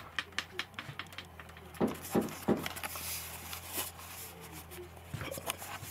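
Handling noise as the camera is moved and rubbed against a blanket: scattered clicks, knocks and soft rustling over a faint steady low hum.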